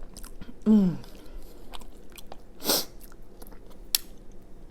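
A person chewing tater tot casserole with wet mouth clicks. About three quarters of a second in comes a short vocal sound that falls in pitch, the loudest moment. Near the middle there is a brief breathy rush, and a sharp click comes about four seconds in.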